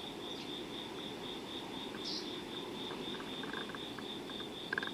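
An insect chirping steadily in a high, even pulse of about five chirps a second, over a low steady hum, with a short click near the end.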